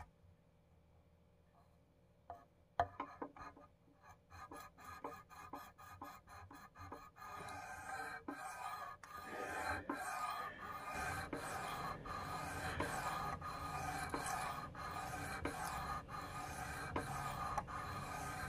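Knife blade being stroked over a dry sharpening stone on a tri-stone sharpener: faint scraping strokes that start sparse and become steady from about seven seconds in.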